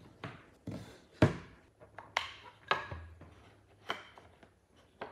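Mitered pine boards set down one after another on a table, giving a series of sharp wooden knocks and clacks, about seven in all. The loudest comes about a second in.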